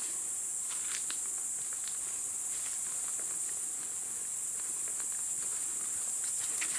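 Steady high-pitched chorus of stridulating insects, with scattered light crackles of footsteps through leaf litter and twigs.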